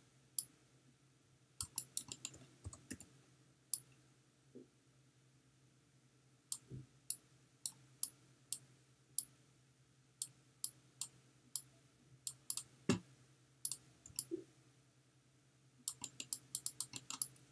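Scattered, irregular clicks of a computer mouse, coming closer together near the end, over a faint steady low hum.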